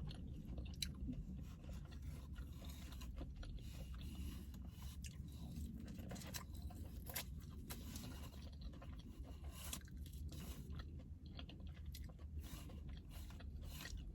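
Close-up chewing of food, with scattered small crunches and mouth clicks throughout.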